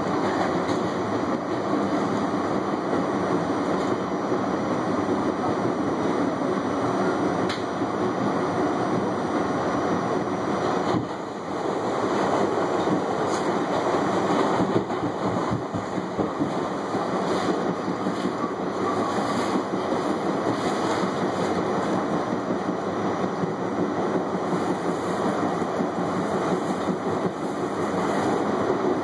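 R68A subway car running at speed, heard from inside the front car: a steady rumble of steel wheels on rail with clickety-clack over the rail joints. Around the middle another train passes close alongside on the adjacent track.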